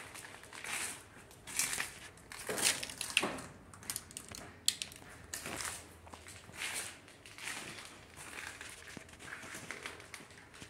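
Footsteps crunching over a floor strewn with flaking debris, about one step a second.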